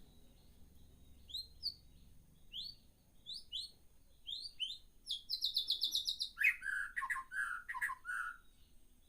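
Caged birds chirping: a string of short rising chirps, then a fast high trill about five seconds in, followed by several lower, rougher notes.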